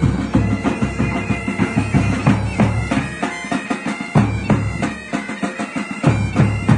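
Military pipe band playing: bagpipes sounding a tune over their steady drones, with drums beating time. The deep drum beats drop out for about three seconds midway, then come back.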